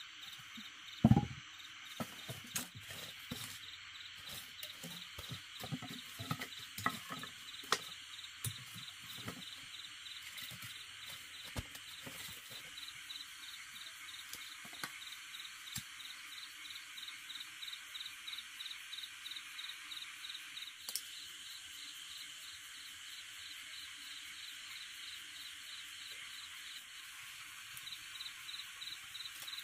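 Insects chirping in a steady, pulsing rhythm at night. Over this come scattered knocks and clicks of sticks being handled as a small fire is laid and lit, the loudest a thump about a second in.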